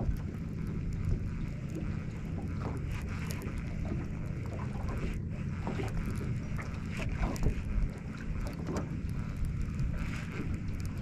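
Wind buffeting the microphone as a steady low rumble, with small waves lapping and slapping against the aluminum boat's hull in scattered little splashes.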